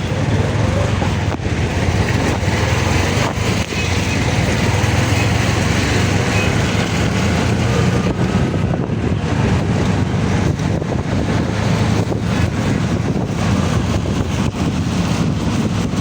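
Steady, loud rumble of road traffic and vehicle noise.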